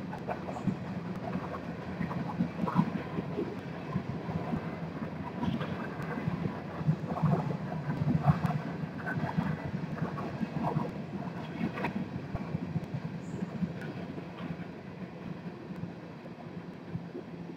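Empty coal cars of a freight train rolling past, their steel wheels running on the rails with a steady rumble and irregular knocks and rattles.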